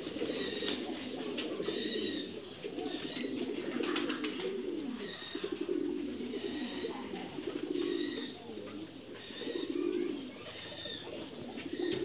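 Several domestic pigeons cooing, their low coos coming one after another and overlapping.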